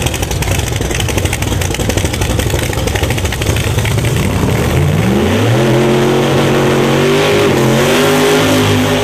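Nitrous Pro Mod drag car's V8 engine running with a rough, lumpy rumble, then revving up about four and a half seconds in and holding high revs with small dips.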